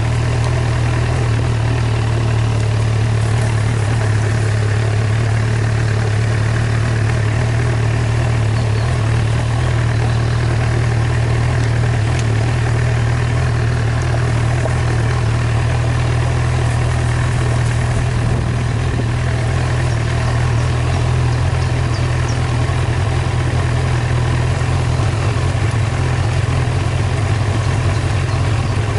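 Engine of a slowly moving vehicle running steadily, a constant low hum that does not change pace.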